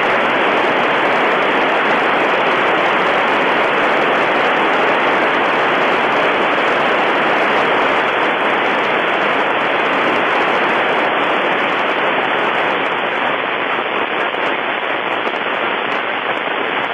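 Loud, steady FM receiver hiss from an Icom IC-746PRO transceiver tuned to the International Space Station's 2-metre FM downlink. It is open-squelch static with no signal on the frequency, heard between transmissions from the station.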